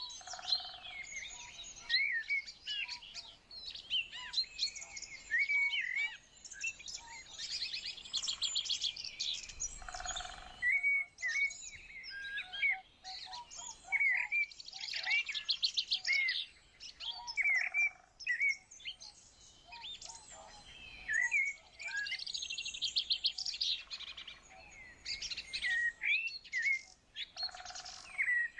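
Several small songbirds chirping and singing together, with short repeated calls and bursts of rapid trills.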